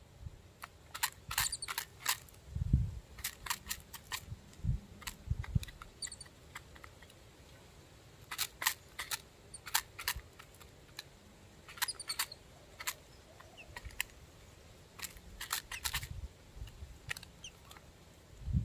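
Small birds feeding on grain: a patter of quick, irregular sharp taps and clicks in clusters, with a few faint high chirps. A few low thuds sound among them.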